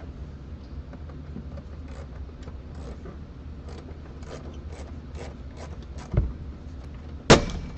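Light clicks and scrapes of interior parts being handled as a car's interior is taken apart, with a dull thump about six seconds in and a sharp knock near the end, over a steady low hum.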